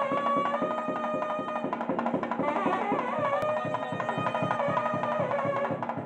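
Background music: a held, gently gliding melody over a fast, steady drum beat.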